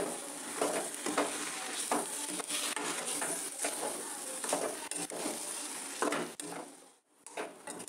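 Metal spatula scraping and stirring mashed potato filling around a karahi over a faint sizzle, in repeated strokes about one or two a second. The stirring stops briefly about seven seconds in.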